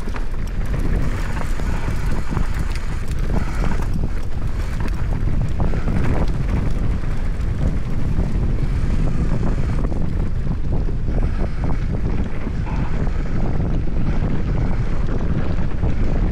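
Wind rushing over the action camera's microphone during a mountain-bike descent, with the frequent clatter and knocks of the bike running over rough trail.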